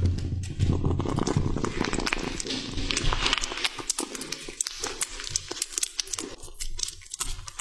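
A kitten licking and chewing a slab of raw salmon: quick wet clicks and smacks that grow denser about three seconds in. A low steady hum runs under the first few seconds.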